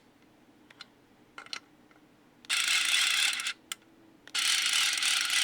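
A TAKAGI Earth Man electric screwdriver drives against a 0.7 N·m torque limit, and a clutch ratchets rapidly as it slips, in two bursts of about a second each over a faint motor hum. The slipping shows the driver reaching the 0.7 N·m setting.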